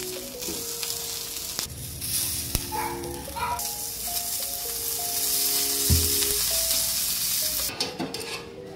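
Hungarian sausage sizzling on a hot flat-top griddle. The sizzle swells loud and steady after liquid is squirted onto the plate from a squeeze bottle, then dies away near the end.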